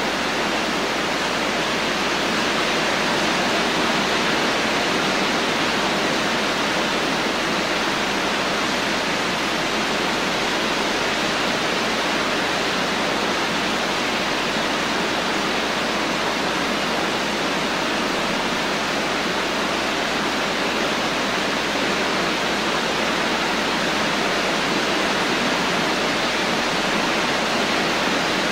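Steady rain: a constant, even hiss with no single drops, thunder or other events standing out.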